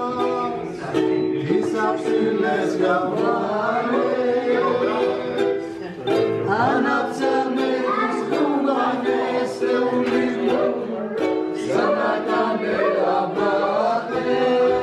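A small stringed instrument strummed in a steady rhythm while several people sing along.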